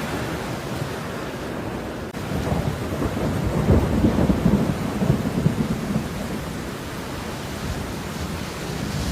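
Steady rain with a low rumble of distant thunder that swells about two seconds in and dies away by about six seconds.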